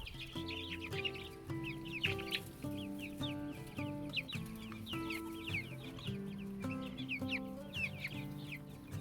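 Chickens clucking with chicks peeping in many quick, high, falling chirps, over background music with held notes.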